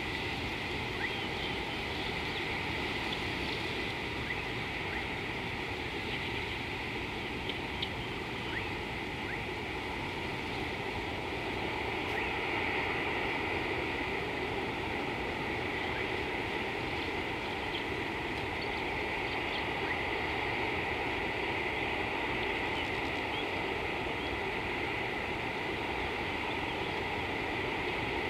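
Steady outdoor ambience at an empty watering hole: a constant hiss with a high, even drone that swells a little about twelve seconds in, and a few faint chirps.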